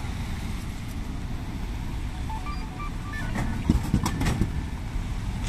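Drink vending machine giving a short run of electronic beeps at a few different pitches about two seconds in, followed by a few sharp knocks and clatters, over a steady low rumble of traffic.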